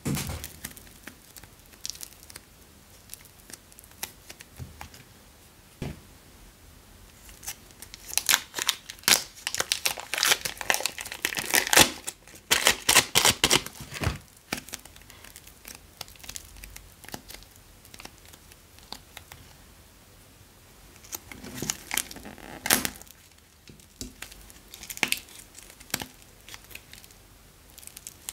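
Small clay-filled bags crinkling and tearing as hands squeeze and peel them, in scattered crackles with two longer bursts, the loudest about 8 to 14 seconds in and another about 21 to 23 seconds in.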